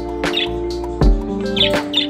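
Background music with steady held notes and a regular beat, with a few short high budgerigar chirps over it.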